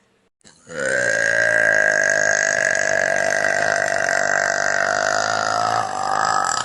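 A woman's single long burp, beginning under a second in and held at a steady pitch for more than five seconds, with a brief dip in pitch and loudness near the end.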